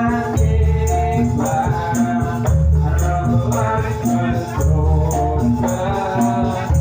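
Javanese jathilan music played loud through a sound system. Pitched percussion picks out a repeating melody over heavy bass notes that come about every two seconds, with a regular rattling beat on top.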